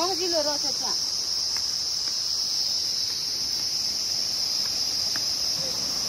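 Steady, high-pitched drone of insects, with a brief stretch of a person's voice in the first second.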